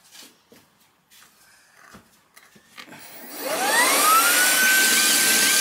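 A few light handling clicks, then about three and a half seconds in a handheld vacuum cleaner switches on: its motor whine rises and settles into a steady high whine over rushing air.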